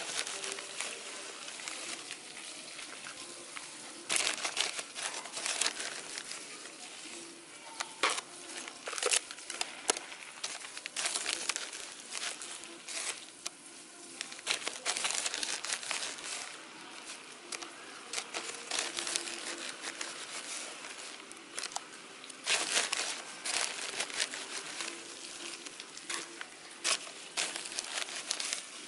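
Hands scooping potting soil out of a plastic sack and dropping it into a plastic basin: irregular rustling and crinkling of the sack with the gritty patter of soil, in uneven bursts with short pauses between scoops.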